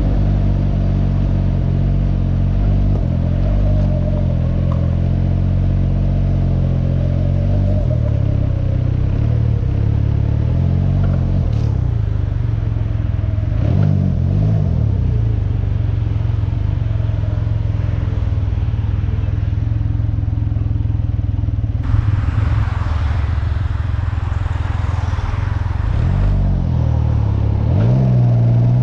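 Can-Am Ryker 900's three-cylinder engine pulling under way. Its pitch holds fairly steady, dips and comes back up around the middle, and rises again near the end as it accelerates. A stretch of rushing noise covers a few seconds in the later half.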